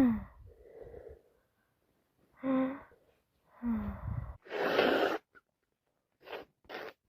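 A woman with a cold builds up to a sneeze with a string of drawn-in gasps whose pitch falls, then sneezes loudly about four and a half seconds in. Two short, sharp breaths follow near the end.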